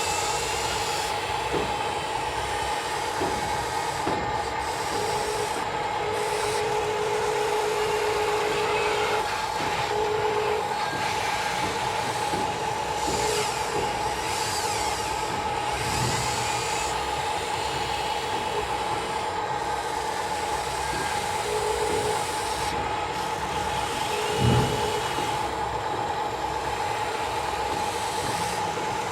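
Radio-controlled construction models working: a steady high electric whine throughout, with several stretches of beeping and scattered small knocks and scrapes.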